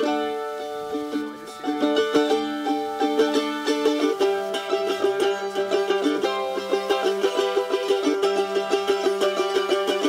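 Background music on a plucked string instrument, picked melodically, with fast, even repeated picking from about four seconds in.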